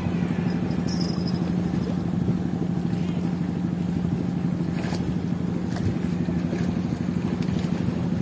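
An engine running steadily at an even pitch, a constant low hum that neither rises nor falls.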